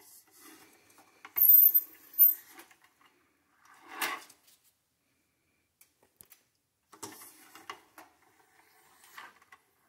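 Cleaning rod with a patch being worked through an AR-15 barrel: metallic rattling and scraping in a few short bouts, the loudest about a second and a half in, with a thin high squeal there.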